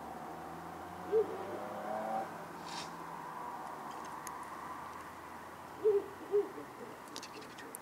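Ural owl hooting: one deep hoot about a second in, then two more close together near the end.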